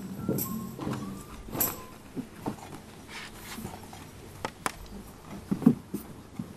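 Scattered knocks and rustling of painted scenery panels being carried and set down on the grass, with a few louder short sounds near the end.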